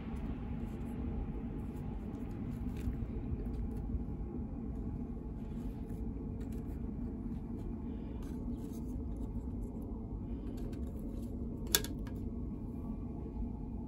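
Light clicks and soft handling noises as raw flounder are lifted and moved about on a perforated aluminium tray, with one sharp click near the end, over a steady low hum.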